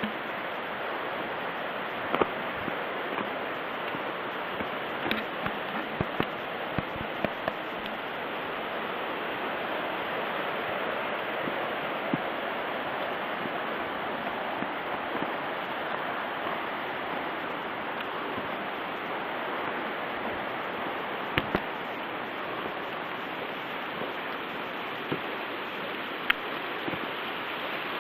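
Mountain stream rushing steadily, with a few short sharp clicks scattered through it.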